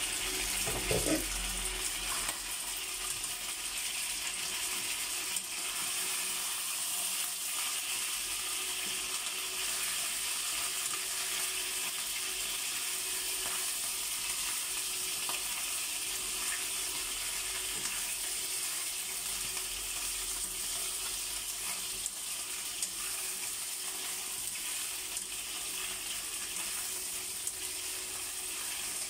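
Chicken pieces sizzling steadily as they fry in hot oil in a nonstick wok, with metal tongs clicking and scraping against the pan as the pieces are turned.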